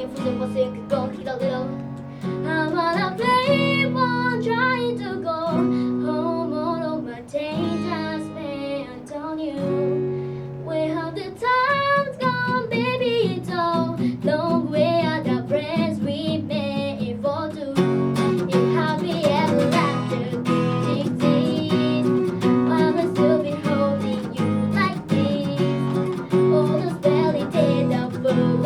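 Live acoustic music: a woman singing a melody with vibrato over acoustic guitar. The guitar strumming becomes fuller and louder about two-thirds of the way through.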